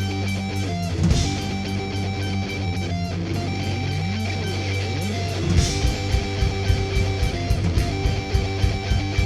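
Instrumental intro of a rock song: electric guitar playing over bass, with a steady ticking beat. A cymbal crash comes about a second in, and a second crash about five and a half seconds in brings in a driving low drum beat.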